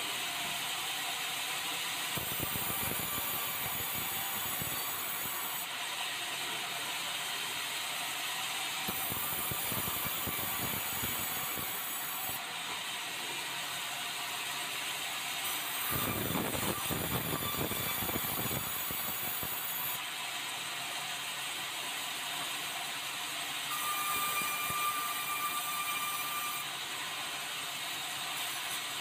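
Sawmill band saw running steadily, its noise swelling several times as the blade cuts through red meranti timber being sawn into boards. A thin whine sounds near the end.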